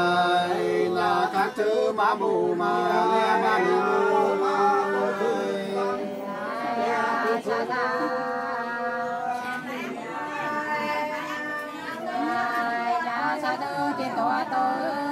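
Nùng sli folk song sung unaccompanied by women in two voices, with long held notes that slide in pitch.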